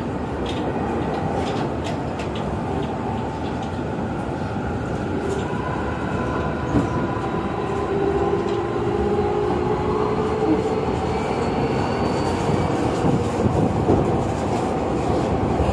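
Keio Inokashira Line electric train running, heard from inside the car: a steady rumble of wheels on rail with occasional clicks over rail joints. A faint whine rises slightly in pitch through the middle.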